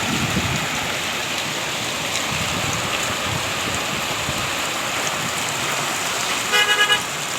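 Steady rain falling, an even hiss of rain on surfaces. Near the end, a quick run of about four beeps.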